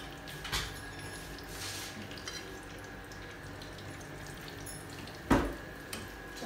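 Chicken nuggets shallow-frying in oil in a pan, a steady sizzle, with a metal utensil clicking against the pan and one sharp clank about five seconds in.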